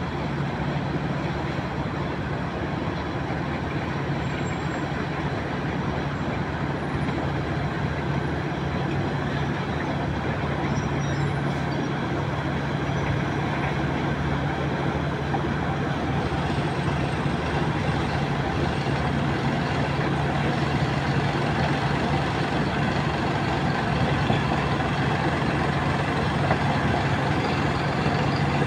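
Diesel engines of heavy earthmoving machinery (a crawler bulldozer, dump trucks and excavators) running at work: a steady low engine hum over a rumbling background, growing a little louder toward the end.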